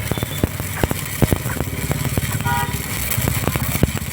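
Arc welding crackling: irregular sharp pops and spits over a steady hiss, with an engine running steadily underneath.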